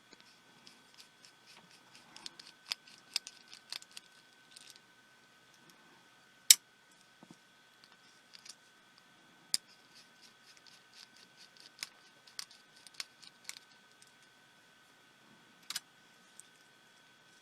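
Irregular small clicks and taps of tools and tiny plastic and metal parts being handled while a pico projector is taken apart, with two sharper clicks about six and nine and a half seconds in. A faint steady high whine sits underneath.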